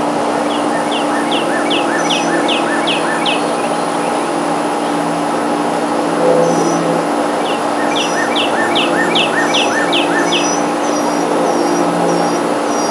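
A songbird singing two runs of rapid down-slurred notes, about three a second, with short high chirps in between, over a steady mechanical hum.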